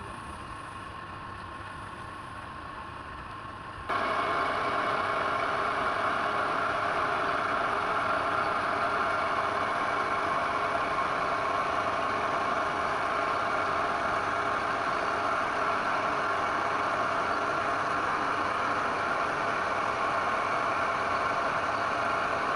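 Electric woodworking power tool running steadily, a motor hum with a whine. About four seconds in it suddenly gets louder and then holds steady.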